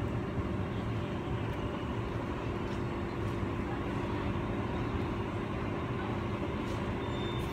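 Sydney Trains Waratah electric train running slowly into the platform, a steady low rumble with an even electrical hum from the train standing alongside.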